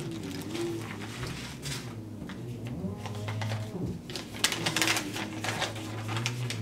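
Plastic bag and paper wrapping crinkling and rustling as they are handled, in irregular bursts that are loudest about four to five seconds in, over a low steady hum.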